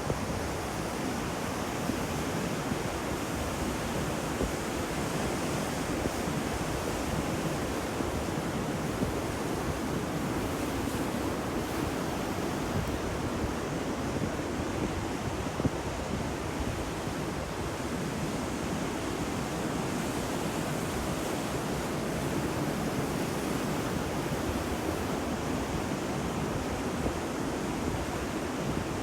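Ocean waves washing on a shore: a steady, continuous rush of surf.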